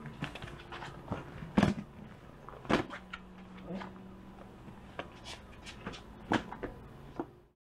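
Handling noise from a rolled-up inflatable PVC dock being unrolled and spread flat on a concrete floor: scattered sharp crinkles and slaps of the stiff material, over a low steady hum. The sound cuts off suddenly near the end.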